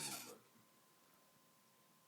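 A woman's snore ends about a third of a second in, then near silence: the pause between breaths.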